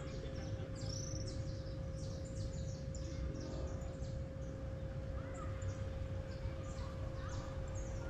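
Many birds chirping and calling in quick, short notes over a low rumble of wind on the microphone, with a faint steady hum underneath.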